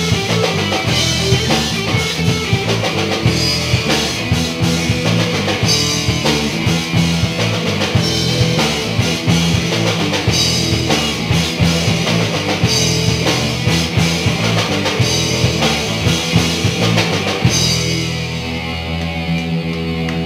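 Live rock band jamming on electric guitars and a drum kit, instrumental with no singing. Near the end the drumming stops and held guitar notes ring on.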